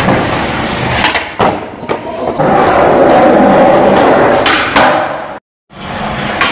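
Skateboard wheels rolling on a concrete floor, with several sharp clacks of the board and a louder rolling stretch in the middle. The sound cuts off abruptly near the end, then starts again.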